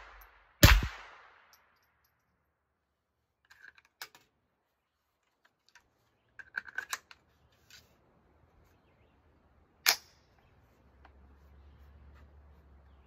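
Smith & Wesson M&P 15-22 rifle in .22 Long Rifle firing one sharp shot, then the light clicks and knocks of a magazine change, then a second shot about ten seconds in.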